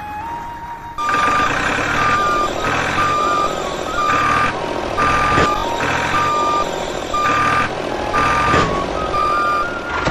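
Vehicle reversing alarm beeping, a regular series of high beeps starting about a second in, over a low motor rumble.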